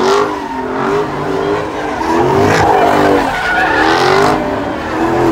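A car engine revving hard, its pitch rising and falling over and over, with tyres skidding and squealing as the car is spun in circles.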